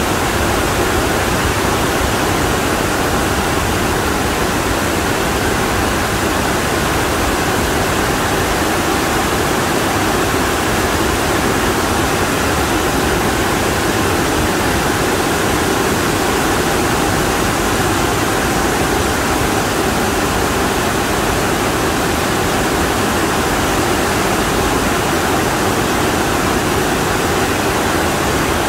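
Very heavy monsoon rain pouring down steadily, a loud, even rush of water with no breaks.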